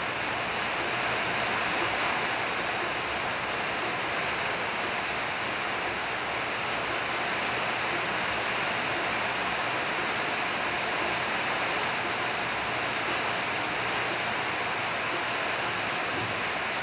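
Steady rushing hiss.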